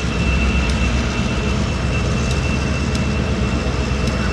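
Diesel-electric locomotive GMTX 2235 running under load, a steady low engine rumble with a thin steady high whine above it.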